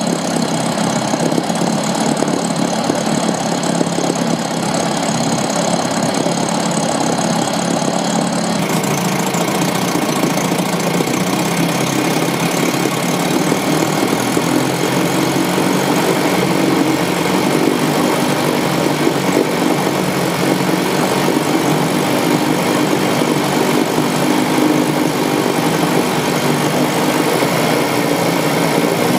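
A 1953 Mercury Mark 7 two-stroke outboard motor running steadily.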